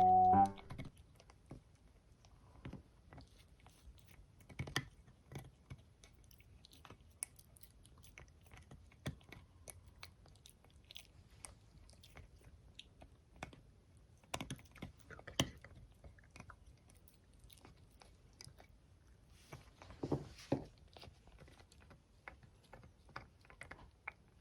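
A Maltipoo dog chewing and gnawing, heard as irregular, scattered clicks and crunches of teeth on a chew, a few of them louder. The chewing is to ease itchy teeth.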